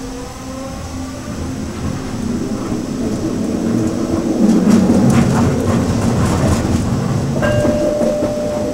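Detroit People Mover automated linear-induction-motor car running along its elevated guideway, heard from inside the car. A faint rising motor whine comes first, then the wheel-on-rail rumble grows louder, with clicks over the track. A steady tone sounds for about a second near the end.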